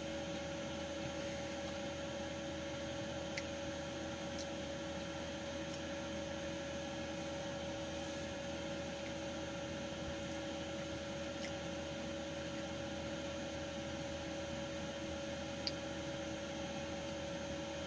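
Steady hum and hiss with two constant tones, with a few faint clicks.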